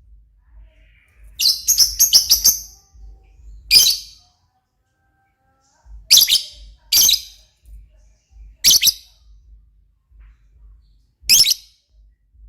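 Lovebird giving sharp, high chirps: a quick run of about six around two seconds in, then single calls every second or two.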